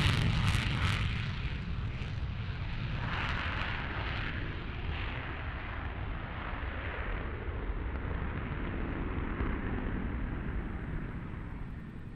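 Mikoyan MiG-31 interceptor's two Soloviev D-30F6 afterburning turbofans at full afterburner on takeoff: a loud jet roar with crackle that eases into a steady rumble as the aircraft climbs away, dropping off near the end.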